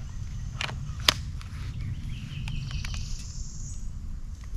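Wild bird chirping, a quick run of short notes about two seconds in, over a low steady rumble. A few sharp clicks, the loudest about a second in.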